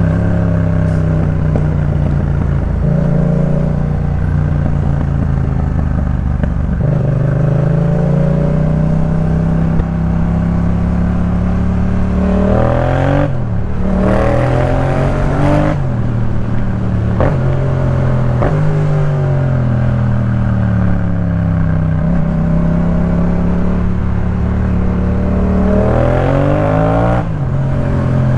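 2018 Yamaha MT-07's 689 cc parallel-twin engine through a Jeskap K4 full aftermarket exhaust, heard from the moving bike. It pulls at steady speed with the pitch sliding up and down through gear changes, and revs up hard about halfway through and again near the end.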